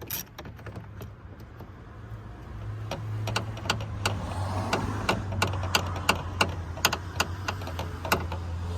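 Socket ratchet clicking in uneven strokes as the last 10mm door-mirror bolt is backed out, over a low steady hum that swells up a few seconds in.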